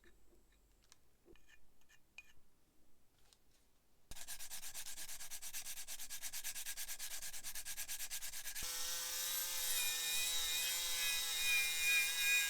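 A few faint handling clicks, then about four seconds in a loud abrasive rubbing on metal begins with a fast, even pulse. About halfway through the steady whine of a small electric motor joins in and grows slightly louder, as a power tool abrades the lighter's metal.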